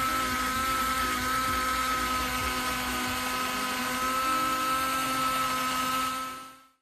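Electric drill running at a steady high speed with a potato spun on its bit for peeling; an even whine that fades away near the end.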